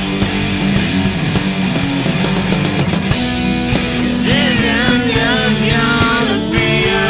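Rock music with a steady beat; a sung vocal line comes in about four seconds in.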